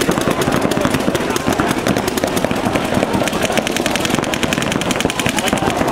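Paintball markers firing in rapid, unbroken strings, many shots a second, keeping up steadily without a pause.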